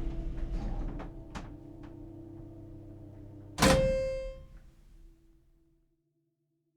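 An old door shutting with one loud thunk about three and a half seconds in, followed by a short metallic ring, after a few light clicks and a steady hum that fades away.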